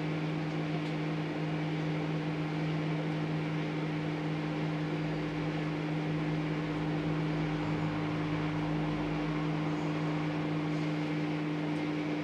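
Microwave oven running at full power: a steady, even hum with fan noise.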